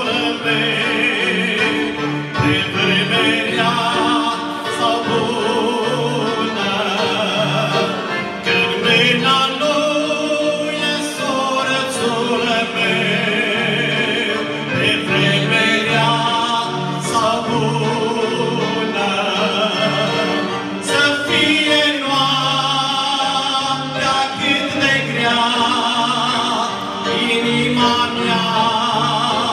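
Live church song: a man singing with heavy vibrato, backed by two accordions and an electric keyboard, with bass notes on a steady beat of about two a second.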